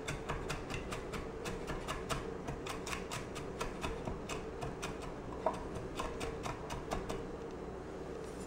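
Chef's knife chopping garlic on an end-grain wooden cutting board: a quick, even run of sharp taps, about four a second, that thins out near the end.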